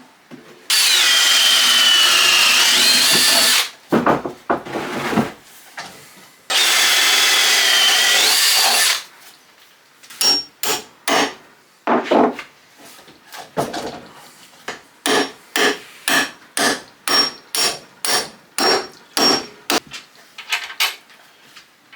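A handheld power drill boring a bolt hole through 4x2 timber in two runs of a few seconds each, its pitch sagging toward the end of each run as the bit bites. Then a long series of sharp hammer knocks, two to three a second, driving a coach bolt through the drilled legs.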